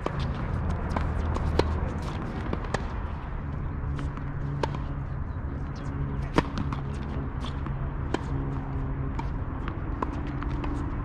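Tennis ball struck by rackets and bouncing on the court during a rally: short sharp pops about once a second, the loudest about six seconds in, over a steady low hum.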